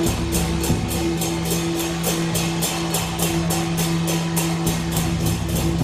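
Procession drum troupe beating large drums on a float, with a fast, even beat of about five strokes a second and bright cymbal-like hits, over music with held low notes.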